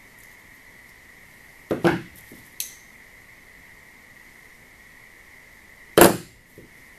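Hand pliers nipping off the end of a small metal wire: a sharp double clack and a thin high click about two seconds in, then a louder single clack about six seconds in, over a faint steady high whine.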